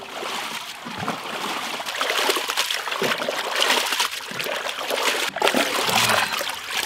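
Hands sloshing and splashing water in a large aluminium pot, churning chunks of raw goat meat to wash them, with irregular splashes throughout.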